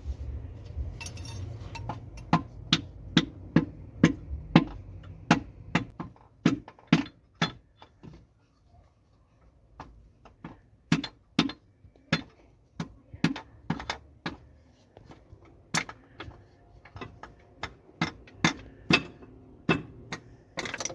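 Repeated hammer knocks, about one to two a second, driving a piston and connecting rod up and out of a cylinder bore of a diesel engine block. The knocks pause for a couple of seconds partway through, then resume.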